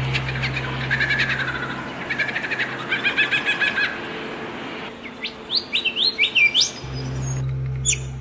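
Small songbirds chirping and trilling. A fast repeated trill comes around three seconds in, and a run of quick rising chirps follows a couple of seconds later. Beneath them runs a steady low hum that drops out for a couple of seconds in the middle.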